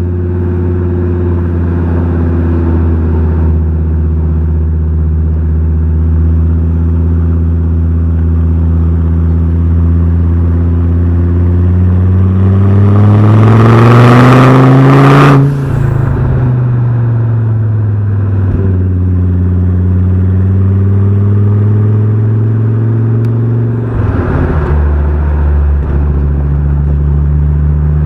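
Fiat Coupe 20V Turbo's turbocharged five-cylinder engine and exhaust under way. It runs steadily, then pulls with a rising pitch for a few seconds before dropping off suddenly at an upshift. It climbs slowly again and drops off at a second shift near the end.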